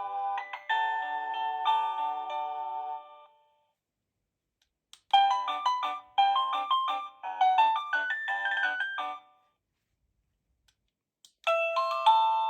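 Avantek wireless doorbell chime playing its electronic melody tunes one after another. One tune dies away about three seconds in. After a short click a second melody plays from about five to nine seconds, and after another click a third tune begins near the end.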